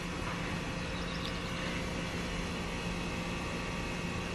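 Steady hum and hiss of background noise, with a constant low tone running under it and no distinct events.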